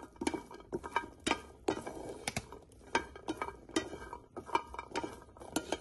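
Jackfruit seeds being dry-roasted in a metal pan and stirred with a wooden spatula: irregular clicks and knocks as the seeds tumble against the pan and each other.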